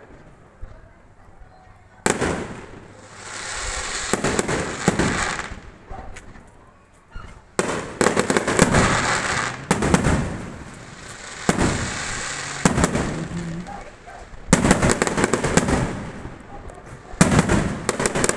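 Fireworks going off: a string of sharp bangs, each followed by a crackling fizz. After a quiet first couple of seconds, the bursts come every second or two.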